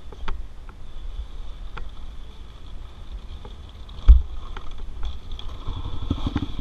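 Dirt bike rolling over rough grass with its engine not clearly running: scattered knocks and rattles from the bike, and one heavy thump about four seconds in. Near the end comes a quick run of low pulses.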